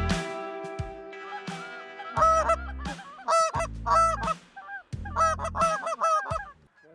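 Geese honking loudly in repeated bursts as a flock calls, after the tail of background music fades out in the first second or so.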